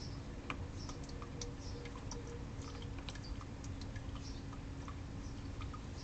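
Backyard ambience: irregular short ticks and a few faint high chirps over a steady low hum and rumble.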